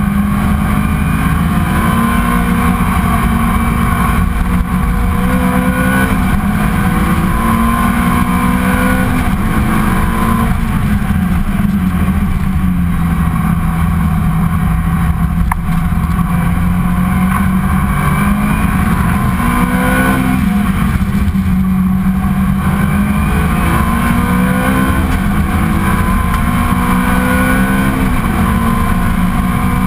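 Ferrari 430 GT3's 4.3-litre V8 heard from inside the cockpit at racing speed, its pitch climbing through each gear and dropping back at every shift. A little under halfway through the revs sit lower for a few seconds, then climb through the gears again.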